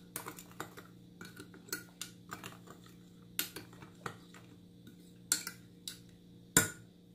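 A metal fork clinking irregularly against the sides of a glass measuring cup while stirring yeast and sugar into warm milk, with one louder clink near the end. A faint steady low hum runs underneath.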